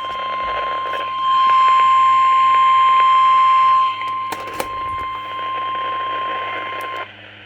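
NOAA Weather Radio 1050 Hz warning alarm tone, one steady high tone over static hiss from a weather radio receiver, which signals that a warning follows. It gets louder about a second in, falls back about four seconds in with a few clicks, and cuts off about half a second before the end.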